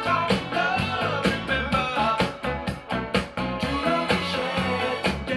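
Funk/disco song with singing played loudly through hi-fi loudspeakers, with a strong, heavy bass line and a steady beat.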